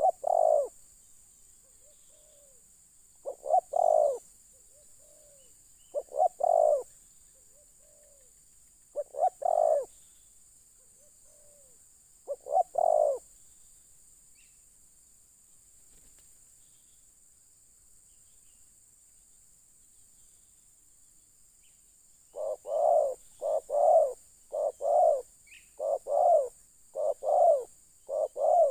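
Spotted dove cooing: repeated phrases of low coos, each a soft short note followed by a louder double coo, about every three seconds. After a pause of several seconds it resumes with a faster run of coos near the end.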